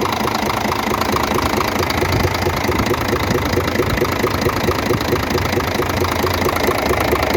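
Scania truck diesel engine idling with a steady, rhythmic knock. The knock carries on even though each unit injector has been checked by disconnecting it, so the mechanic suspects the camshaft; it is felt strongest in the middle of the engine and also comes through into the intake pipes.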